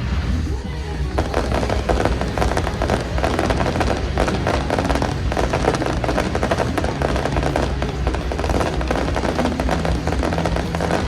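Fireworks crackling in a dense, rapid run of small bursts that starts about a second in and keeps going, with music playing underneath.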